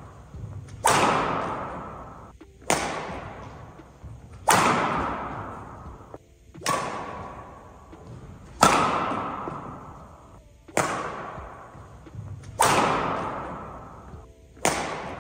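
Badminton rally: a racket strikes a shuttlecock eight times, about two seconds apart, with loud smash hits alternating with softer returns. Each hit rings on in the sports hall's echo.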